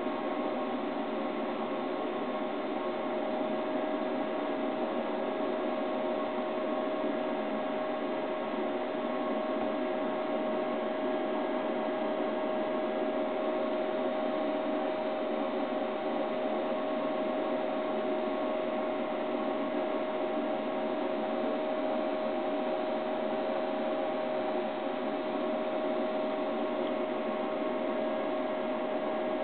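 Steady, unchanging hiss with a constant mid-pitched hum tone.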